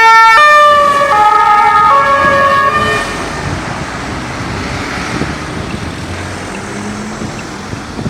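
Two-tone emergency vehicle siren alternating between a high and a low note. Its notes drop in pitch about a second in, and it fades away by about three seconds in, leaving road and wind noise.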